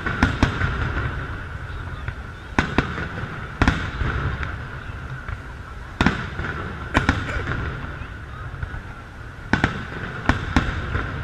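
Aerial firework shells bursting in a public display: a string of sharp bangs at uneven intervals over a continuous low rumble.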